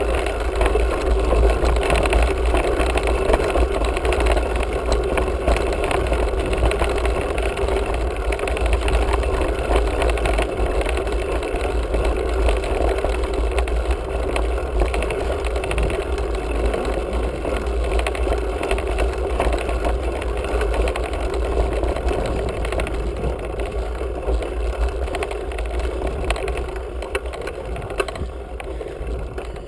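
Mountain bike riding along a dry dirt trail: steady rumble of wind and tyre noise on the bike's action-camera microphone, with a constant low hum and no break.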